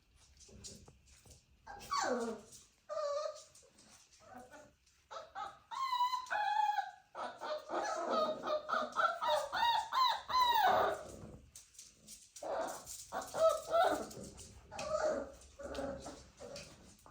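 Young dachshund puppies whining and yelping, many short high calls overlapping, several sliding down in pitch, busiest in the middle.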